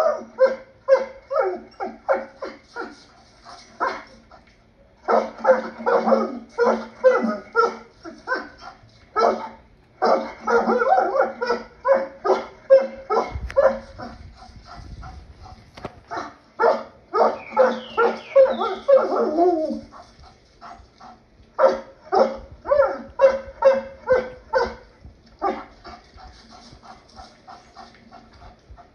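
Wolf yips and short barks played from a recording on a computer, coming in rapid runs of several calls a second with brief pauses between runs, and a falling whine-like call about two thirds of the way through.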